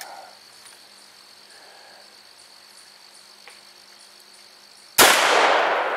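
A single .357 Magnum shot fired from an H&R/New England Firearms 20-gauge single-shot shotgun fitted with a .357/.38 chamber adapter, about five seconds in: one sharp report that echoes and fades slowly.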